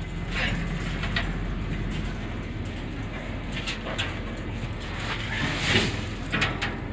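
Tractor engine idling steadily in the background while a woven sack of grass seed is handled on a seed drill's metal step platform: a string of short rustles and scrapes, loudest about six seconds in.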